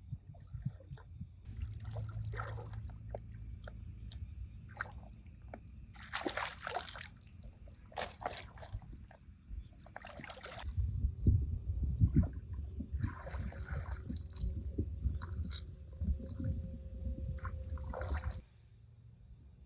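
Shallow water splashing and sloshing in irregular bursts, some short and some a second or so long, stopping suddenly near the end.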